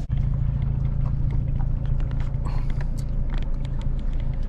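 Vehicle engine running with a steady low rumble, with faint scattered ticks and knocks over it.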